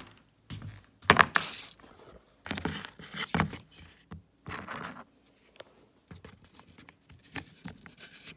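Small hose fittings being handled and sorted, with irregular clinks, rattles and rustles, loudest about a second in.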